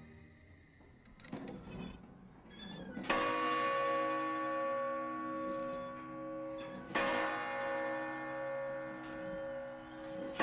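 Large bronze clock-tower bell struck by the hammer of a statue jack, twice about four seconds apart, each strike ringing on with a slow pulsing beat; a third strike lands at the very end.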